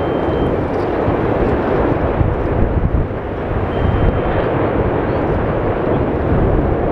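Erupting crater of the Geldingadalir volcano in Iceland, fountaining lava with a continuous deep roar and rumble that swells and eases a little but never stops.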